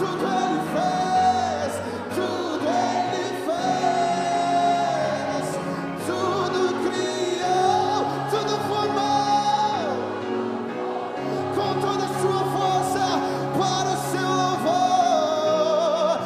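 Live worship music: voices singing long held notes over a band with keyboard.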